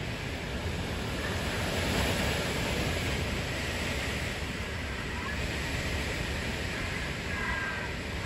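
Category 1 hurricane wind blowing hard and going crazy: a steady rushing noise that swells about two seconds in.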